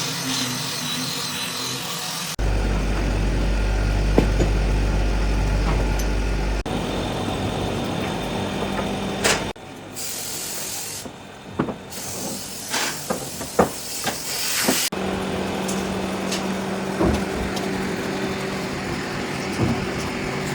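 Woodworking workshop sounds in quick succession, with abrupt changes between segments: power tools running with a steady hum, and a cluster of sharp knocks on wood.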